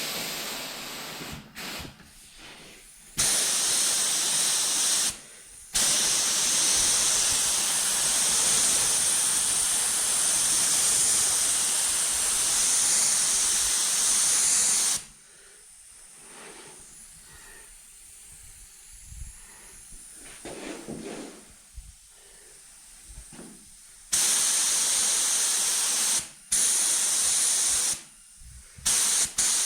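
Compressed-air mini spray gun (touch-up gun) spraying paint with its pot taken off, the trigger pulled in bursts of hiss: a short one about three seconds in, a long one of about nine seconds, a pause, then more short bursts near the end.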